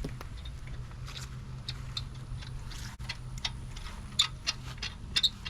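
Light, irregular clicks and ticks that come faster near the end, over a steady low hum.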